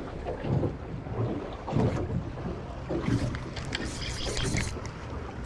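Wind buffeting the microphone on a small drifting fishing boat, with water lapping at the hull. A scatter of light clicks and taps comes in about three seconds in.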